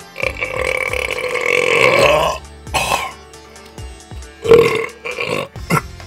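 A man burping loudly: one long, drawn-out burp of about two seconds, followed by a few shorter burps around three and five seconds in.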